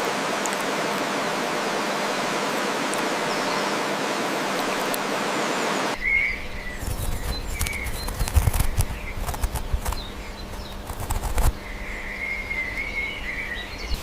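A steady hiss for about six seconds, then an abrupt change to low thumps and rumbles with scattered clicks, and small birds chirping: a few short chirps, then a longer warbling run near the end.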